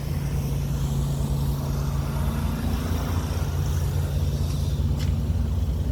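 A truck engine idling steadily: a low, even hum with a fast throb beneath it. A faint click comes about five seconds in.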